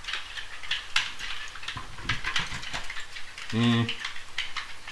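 Hard parts of a G1 Megatron transforming toy clicking and clacking as they are handled and fitted together, in a run of small irregular clicks and knocks. A short hummed "mm" from a man about three and a half seconds in.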